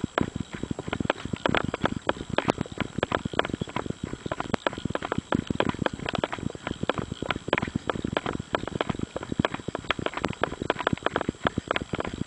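A runner's footfalls on a gravel and dirt fire road, a quick, even rhythm of strides.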